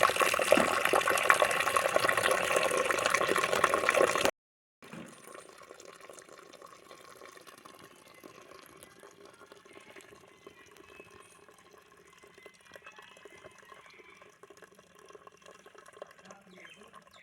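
Starchy water being drained off a pot of cooked rice, pouring steadily for about four seconds. It then cuts off abruptly, leaving faint, quiet kitchen sound.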